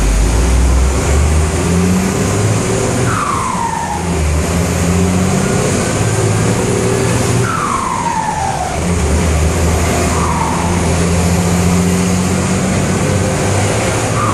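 Turbodiesel engine of a Volkswagen 210 bus pulling under load, heard from inside the cab, with its turbocharger, fitted with a 'pente' whistle insert, 'singing': a whistle that falls in pitch, four times.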